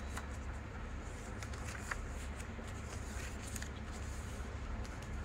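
A sheet of paper being folded and creased flat by hand: soft scattered rustles and crinkles of the paper under the fingers, over a steady low hum.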